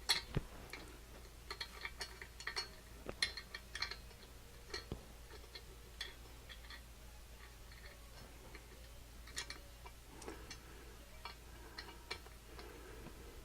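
Scattered light clicks and taps of small metal parts being handled on a workbench during reassembly of a drill grinder, irregular and quiet.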